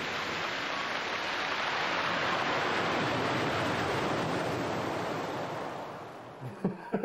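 Sea surf breaking and washing up over a pebble beach, a steady rush that swells in the middle and fades away near the end.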